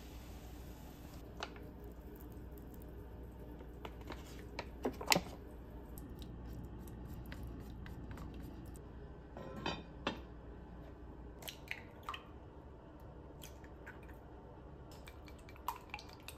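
Scattered light clinks and knocks of cookware: a lid and a wooden ladle and chopsticks against an enamelled cast-iron pot of miso soup, over a faint steady hum. Near the end, chopsticks tap against a glass mixing bowl.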